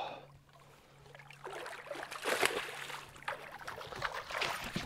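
A hooked largemouth bass splashing and thrashing at the surface beside the boat in several bursts, starting about a second and a half in. A steady low hum runs underneath.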